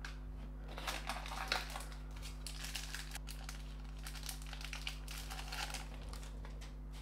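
A foil Panini Donruss Optic trading-card pack being torn open and crinkled. The crackling runs in short bursts and is loudest about a second and a half in.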